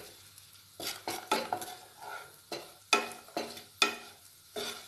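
Wooden spatula stirring and scraping cashews around a non-stick kadhai as they fry in a little ghee, in short strokes about two a second from about a second in.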